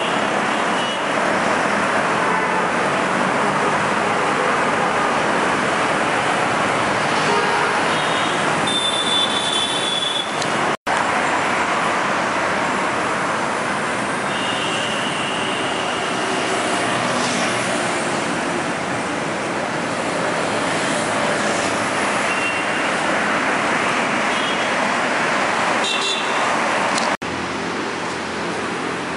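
Steady road traffic noise, with a few brief vehicle horn toots. The sound cuts out for an instant twice, about eleven seconds in and near the end.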